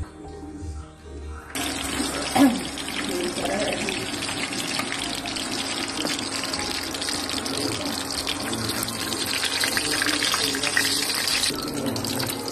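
Tilapia frying in hot oil in a frying pan: steady sizzling and crackling that starts suddenly about a second and a half in and stops shortly before the end, with one sharper clack soon after it starts.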